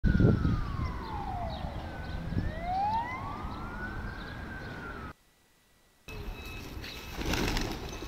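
Emergency vehicle siren wailing slowly, its pitch falling and then rising again, over wind noise on the microphone; it cuts off suddenly about five seconds in. After a second of silence, wind noise returns with a brief flurry of pigeons' wingbeats as the flock takes off.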